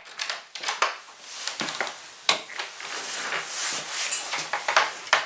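Rustling with many scattered clicks and knocks at irregular intervals: the sound of handling and moving things about, with no engine running.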